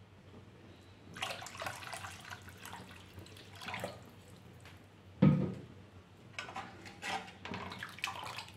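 Water poured into thick moong dal soup in a pan, the soup stirred and ladled so the liquid sloshes and splashes, with one loud knock about five seconds in.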